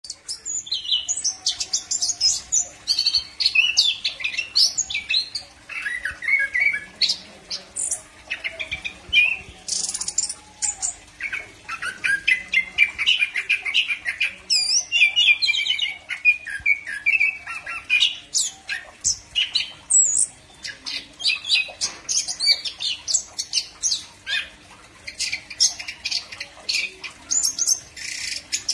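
Chestnut-capped thrush singing: a near-continuous run of rapid, varied chirps, whistled glides and warbled phrases, high-pitched. A faint steady hum lies underneath.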